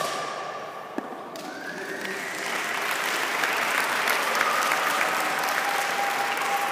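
Crowd applauding, the clapping swelling about a second and a half in and then holding steady, after a sharp click right at the start.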